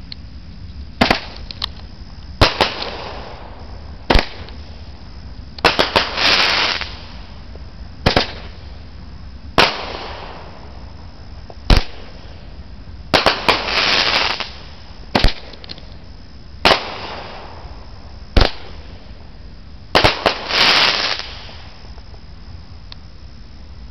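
Multi-shot firework cake firing a sharp shot every one to two seconds. Many shots are followed by a short crackling hiss. The shots stop about 21 seconds in.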